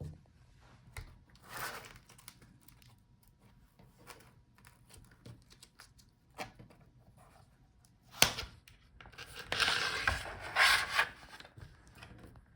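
Hands handling laptop display parts on a workbench: scattered small clicks and taps, a sharp click about eight seconds in, then a couple of seconds of rustling, crinkling scrapes.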